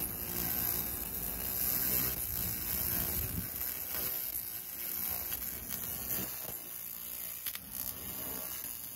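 Hulk 200 handheld laser cleaner ablating soot from red brick: a steady buzzing crackle with a strong high hiss as the beam sweeps the surface.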